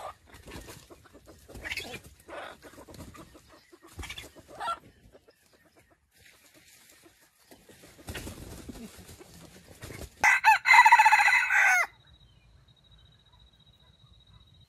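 A red junglefowl rooster crows once, a short loud crow of under two seconds about ten seconds in, after a stretch of soft clucks and rustling.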